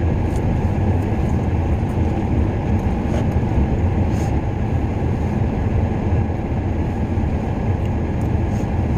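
Steady low rumble inside a car's cabin from the engine idling with the heater running, with a few faint clicks.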